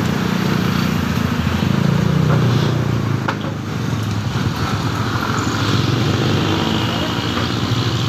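Street traffic passing close by: the engines of a jeepney, motorcycles and motorcycle tricycles running as they drive past, with a car and a pickup going by. The rumble is loudest about two seconds in, and there is a short sharp click about three seconds in.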